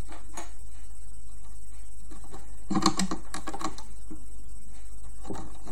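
Small plastic clicks and taps of rubber loom bands and a hook working on the pegs of a plastic band loom, in a few short clusters: once near the start, a busier run about halfway, and again near the end. A steady low hum lies under it.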